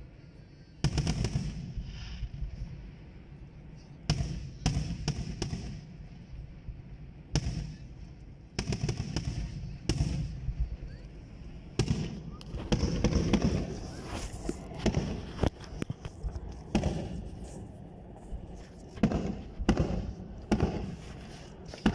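Aerial firework shells bursting in an irregular string of booms, about twenty in all, some coming in quick clusters of two or three, each followed by a short crackling tail.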